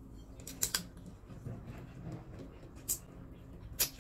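Shell of a cooked prawn crackling and snapping as it is peeled by hand, with a few sharp clicks, the loudest near the end, and mouth sounds as the prawn is eaten.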